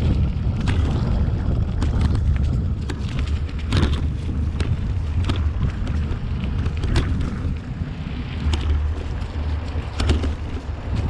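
Wind buffeting the microphone of a camera on a mountain bike ridden along leaf-strewn dirt singletrack: a steady low rumble, with scattered sharp clicks and rattles from the bike and its tyres over the ground.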